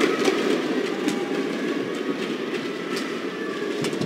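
Badminton rally: several sharp racket strikes on the shuttlecock, irregularly spaced, over a steady noise of the arena crowd.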